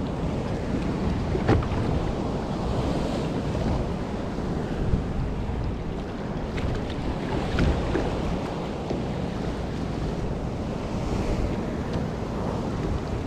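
Wind buffeting the microphone over choppy sea, with waves washing around a fishing kayak, and a few short knocks or slaps against the hull about 1.5, 5 and 7.5 seconds in.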